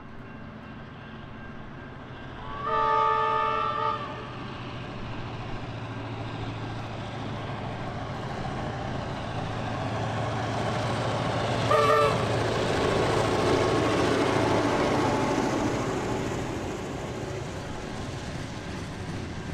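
Victorian Railways T class EMD diesel locomotive hauling a freight train as it approaches and passes, its engine drone growing louder. There is a long chord-like horn blast about three seconds in and a short toot about twelve seconds in. The sound is loudest as the locomotive goes by, then eases to the rumble of the wagons rolling past.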